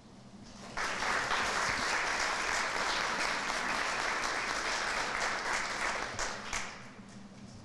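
Audience applauding, starting just under a second in and dying away near the end.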